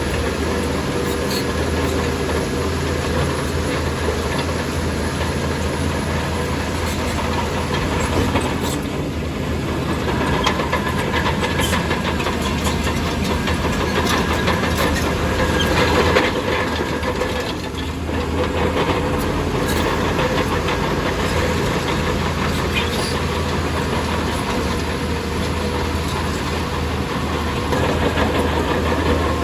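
Crawler bulldozer's diesel engine running steadily under load, with its tracks clanking.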